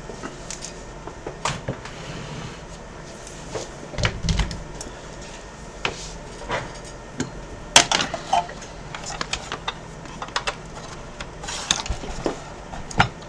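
Irregular clicks, taps and knocks of hard plastic and metal parts being handled while an opened Xbox One S console is worked on, with a duller thump about four seconds in and the sharpest click about eight seconds in.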